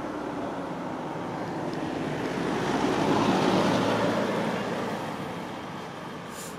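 A car driving past on the road, its engine and tyre noise swelling to a peak about three to four seconds in and then fading away.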